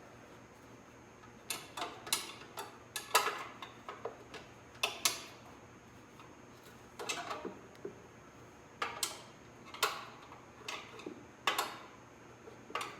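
1/2-inch ratcheting combination wrench working the turn-signal mounting bolts: sharp metal clicks and clinks in short, irregular bursts as the bolts are loosened.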